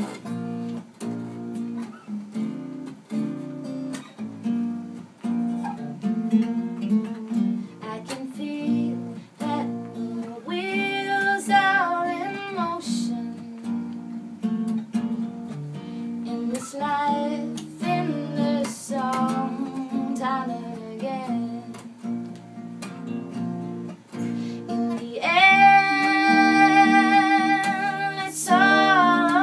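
Unplugged acoustic music: a strummed acoustic guitar over a Takamine acoustic bass guitar. Singing joins in a few times, and near the end the voices swell into a long held line.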